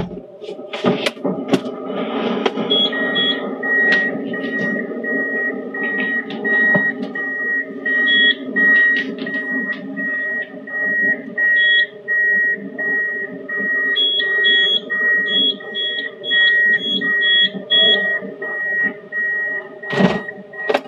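A car's electronic warning chime beeping steadily at one pitch, about three beeps every two seconds, over low cabin noise. A few sharp knocks come in the first two seconds and one near the end.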